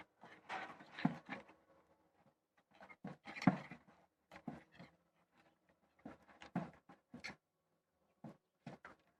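Hands kneading and squeezing homemade slime made of white glue and talcum powder, in irregular bursts.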